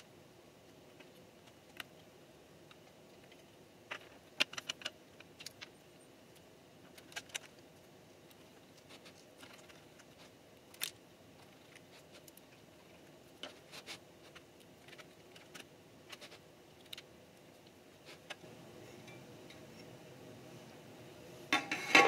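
Scattered small metallic clicks and taps from a screwdriver and screws on a 2013 Mac Pro's top fan assembly and internal frame. Near the end comes a louder metallic clatter and scrape as the outer casing is lowered over the core.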